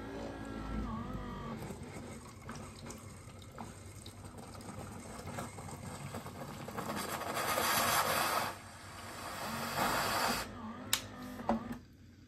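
Bean-to-cup coffee machine running a cycle: a pump hums while liquid hisses and gurgles out, loudest about seven to eight and a half seconds in and again briefly around ten seconds.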